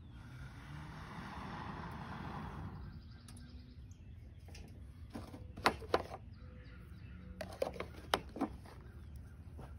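Breath blown steadily into a smouldering tinder bundle holding a char cloth ember, a soft rushing for about three seconds until it catches flame. Later come a few sharp clicks and knocks, a pair about halfway through and more near the end.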